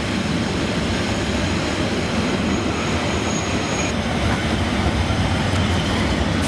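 Metre-gauge Harz narrow-gauge train heard from aboard a coach while it rolls slowly: a steady rumble of wheels on rail, with a faint high wheel squeal for a couple of seconds, starting about a second in.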